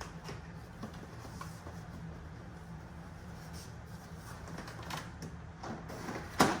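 Faint clicks and rustles of parts and packaging being handled over a steady low hum, with one sharp knock near the end.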